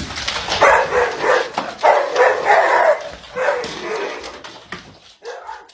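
A dog barking in a quick run of short, high barks that grow fainter near the end.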